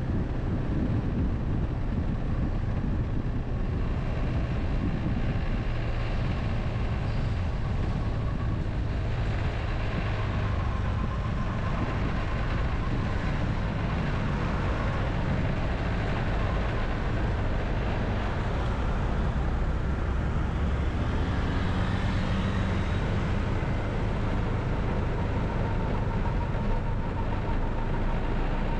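Steady engine and road noise from riding along a city street in light traffic.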